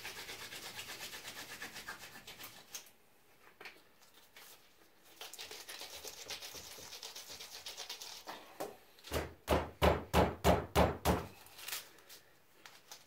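Nitrile-gloved hands kneading and rolling two-part Milliput epoxy putty, a fast rubbing in short strokes that mixes the resin and hardener together. About nine seconds in comes a quick run of about seven thumps as the putty is worked against the paper-covered workbench.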